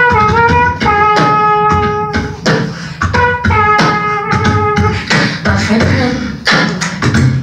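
Live beatboxing into handheld microphones: a steady rhythm of vocal kicks and snares, with long held vocal notes over the beat through the first half.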